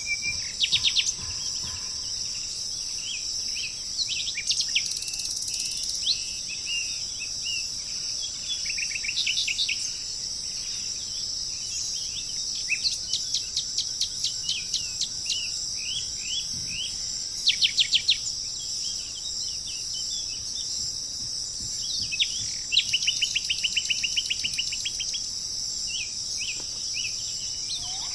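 Birds chirping and calling over a steady, high-pitched drone of insects. Several rapid trills of repeated notes stand out, the loudest about halfway through and a longer one near the end.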